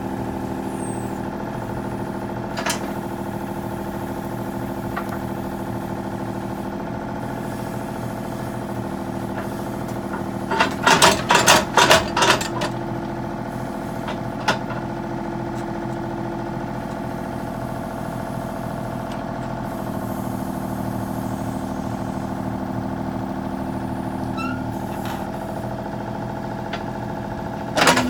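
Kubota U35 mini excavator's diesel engine running steadily. About ten seconds in comes a quick run of sharp clanks and knocks, with single knocks near the start and the end.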